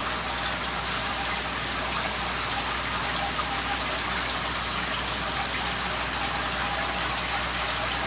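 Water pouring and splashing steadily from a pipe outlet into a tank. It is pumped water returning from a solar water heater's pipe array and draining back into the nutrient tank.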